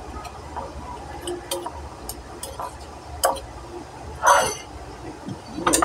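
Metal spoon stirring bagoong and vinegar sauce in a ceramic bowl, tapping and clinking against the bowl with light taps throughout and two louder strokes, about four seconds in and near the end.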